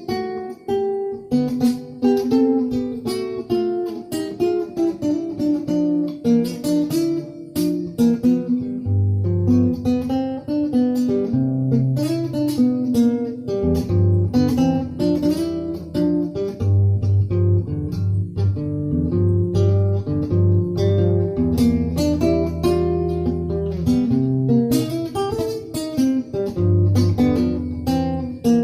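Acoustic guitar music: plucked and strummed notes, with deep bass notes joining about nine seconds in.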